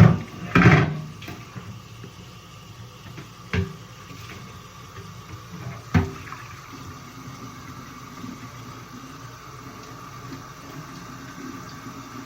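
Water running steadily, as from a tap, with a few sharp knocks in the first six seconds, the loudest just after the start, as the parts are handled.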